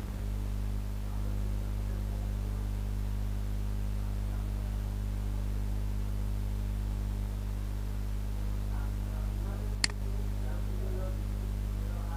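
Steady electrical mains hum, with faint voices in the background late on and a single sharp mouse click about ten seconds in.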